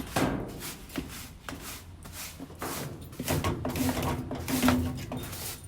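A broom knocking and scraping in a tight space, catching and getting stuck, in irregular short knocks.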